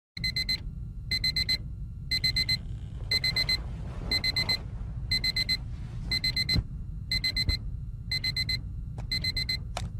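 Digital alarm clock beeping in quick sets of four, about one set a second, over a low steady hum.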